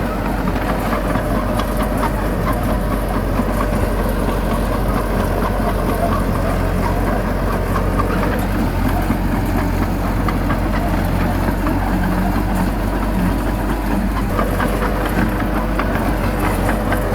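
Heavy diesel engine of a bulldozer running steadily.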